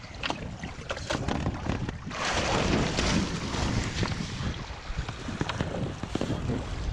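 Water slapping and splashing around a windsurfer and his slalom board during a waterstart, then from about two seconds in a steady rush of spray and water as the board gets under way, with wind buffeting the microphone.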